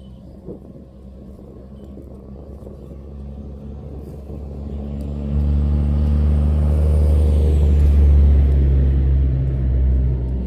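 A motor vehicle engine's low, steady rumble that grows louder over a few seconds and holds at its loudest through the second half.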